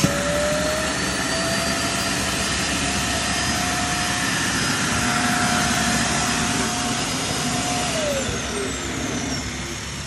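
Roomba i3+ Clean Base auto-empty station sucking the dirt out of the docked robot's bin: a loud vacuum motor that whines up in pitch, runs steadily for about eight seconds, then winds down and fades.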